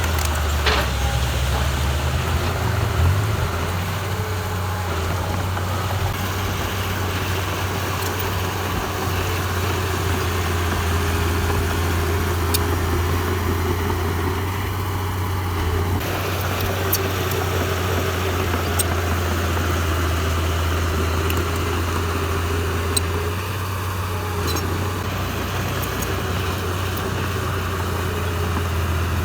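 Heavy earthmoving machine's diesel engine running steadily with an even low drone. A short high squeal slides down in pitch about a second in.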